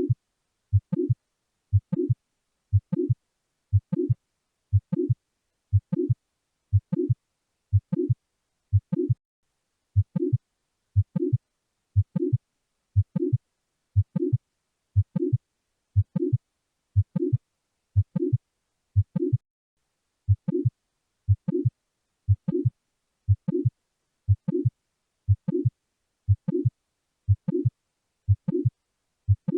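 Heart sounds as heard on auscultation: a steady lub-dub, each beat a short low first sound followed closely by a louder second one, repeating just under once a second.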